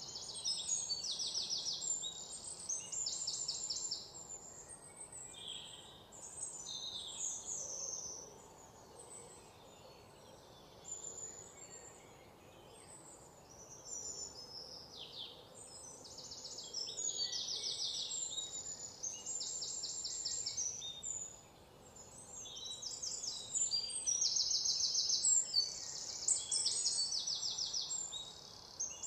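Birds singing: many high chirps and rapid trills, thick in the first few seconds and again through the second half, thinning out in the middle.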